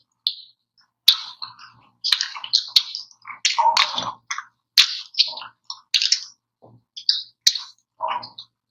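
Close-miked eating of ice cream: a quick, irregular run of short smacking mouth sounds and sharp clicks.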